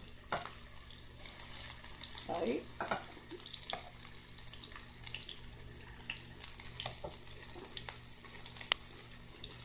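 Chicken breast pieces frying in oil in a skillet, a steady light sizzle, with the scattered clicks and scrapes of a metal fork lifting pieces out of the pan and one sharp click near the end.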